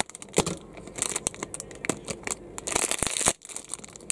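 Small plastic foil blind bag crinkling and tearing as it is opened, with scattered sharp clicks and a louder burst of crinkling about three seconds in.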